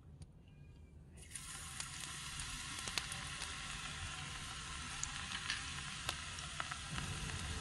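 Chopped garlic dropped into hot oil in a small wok, frying with a steady sizzle that starts suddenly about a second in. Scattered pops and crackles sound through it.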